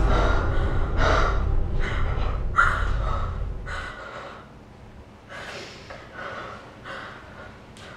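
A woman sobbing and gasping in short, ragged breaths, about one every half second to a second, over a low rumbling drone that fades out about halfway through.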